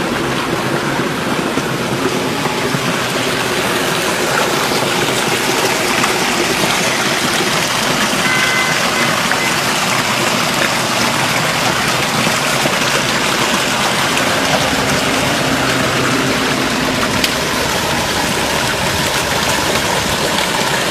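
Spring water gushing out of a rocky cave mouth and rushing down a stony stream channel, a steady, even rush of water.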